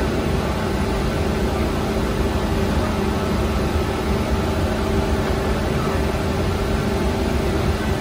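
Steady drone of bakery machinery, such as the oven's burner and fans: an even rushing noise over a low rumble, with a constant mid-pitched hum that does not change.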